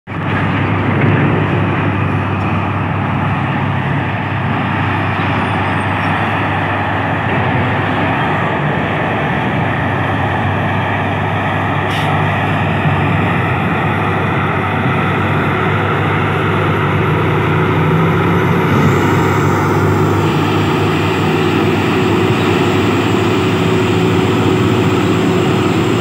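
Liugong B320 crawler bulldozer's diesel engine running steadily under load as the dozer pushes soil with its blade.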